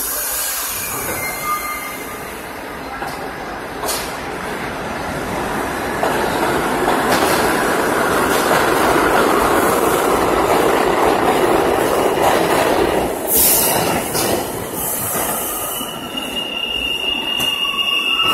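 R62A subway train pulling out of the station. A hiss at the start gives way to the rumble of wheels and motors, which builds as the train gathers speed, with a few sharp clicks. A high-pitched wheel squeal comes in near the end as the last cars leave.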